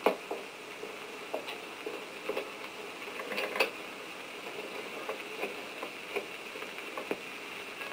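Desk telephone being dialled: faint, irregular clicks roughly once a second over a low steady hiss.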